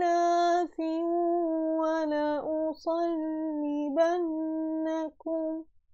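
A woman's voice reciting the Quran in melodic tajweed chant, holding long drawn-out notes with small turns in pitch and short breaks between phrases. The voice stops shortly before the end.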